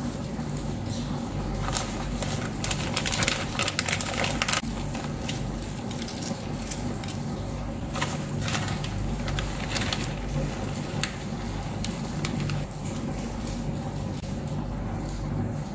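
Crinkling and crackling of plastic shredded-cheese bags being handled and emptied while cheese is spread into a baking pan, in bursts about two to four and a half seconds in and again around eight to ten seconds in, over a steady low hum.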